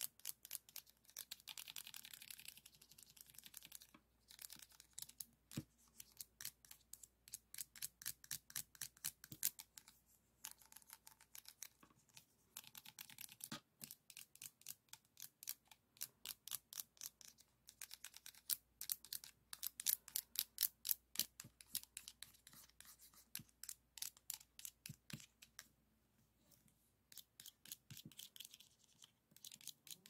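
Pink plastic diamond-painting drill pens tapped together in quick succession, giving rapid light plastic clicks, several a second. Short stretches of scratchy plastic rubbing come in now and then.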